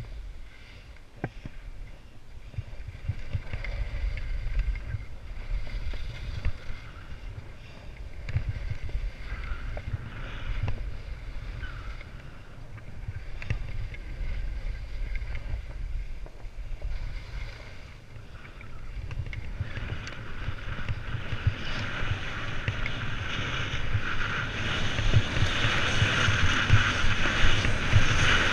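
Wind buffeting a GoPro action camera's microphone on a fast ski-slope descent, over the hiss and scrape of sliding on packed snow. It gets louder over the last third as speed builds, with a few sharp ticks along the way.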